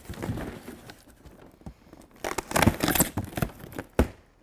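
Cardboard box being handled and opened: scuffing of the cardboard, then a burst of rustling and tearing of flaps and packing tape about two seconds in, and a single sharp knock near the end.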